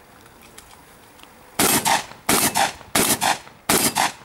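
Shotgun fired rapidly during a practical shooting stage: four loud shots about 0.7 s apart, starting about a second and a half in.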